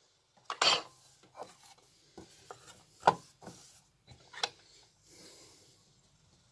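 A gramophone record being handled on the gramophone's platter and turned over: a string of scattered light knocks and rubs at irregular intervals, the loudest about three seconds in, then a faint rustle.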